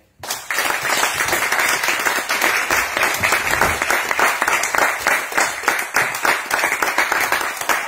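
Audience applause: many hands clapping together, breaking out suddenly just after the start and holding steady.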